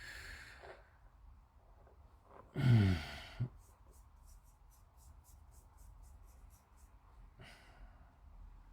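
A man's sigh and a short low hum, then a run of quick, light scratching strokes, about four a second for some three seconds, from hand work on a plastic scale model kit.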